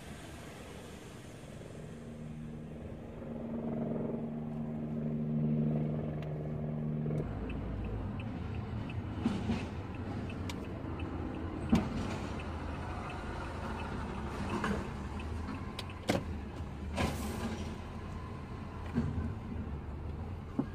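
Car heard from inside the cabin while being driven. A steady engine note holds for the first few seconds; about seven seconds in it gives way to a low road rumble with scattered knocks and rattles.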